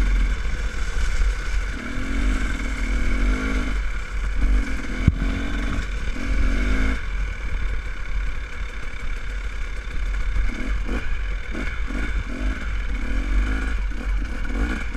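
Dirt bike engine running at low speed, its revs rising and falling again and again with the throttle, heard from on the bike.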